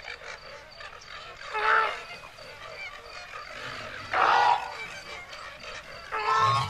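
Three loud flamingo honks, about two and a half seconds apart, over a steady background chorus of frogs and insects.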